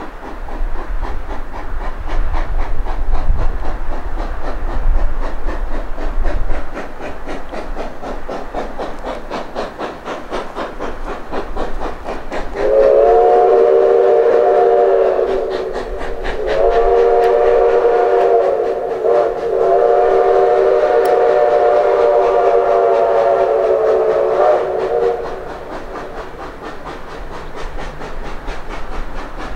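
Canadian National 2-8-2 Mikado No. 3254's steam whistle blowing the grade-crossing signal: two long blasts, a short one and a long one, starting a little before halfway. Under it the locomotive's exhaust chuffs in a steady, fast rhythm.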